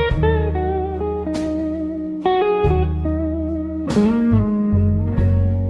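Slow blues instrumental: electric guitar playing a lead line of bent, wavering notes over a deep bass line, with no singing.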